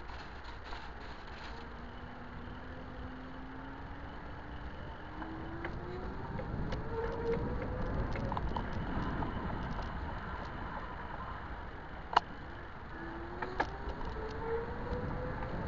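A 500-watt e-bike motor whining, its pitch rising as the bike speeds up, twice, over a steady low rumble of wind and road noise. A sharp click about three-quarters of the way in.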